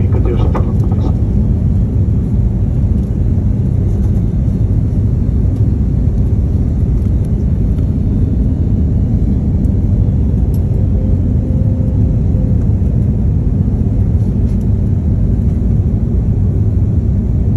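Airliner cabin noise in flight: a steady, loud, low rumble of engines and airflow through the fuselage. A brief sharper noise comes about half a second in.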